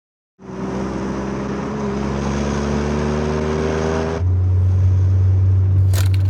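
A car engine starts up and runs, its pitch rising slowly as it picks up revs. About four seconds in it gives way abruptly to a loud, deep, steady bass drone, the opening of a music track, with a few sharp clicks near the end.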